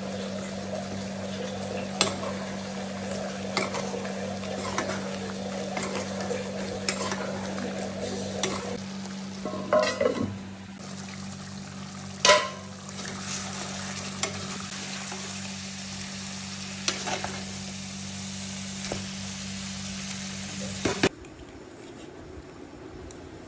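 Chicken masala sizzling in a kadai while a steel spoon stirs it, with scrapes and clinks of the spoon against the pan every few seconds over a steady low hum. Near the end the sizzling cuts off suddenly.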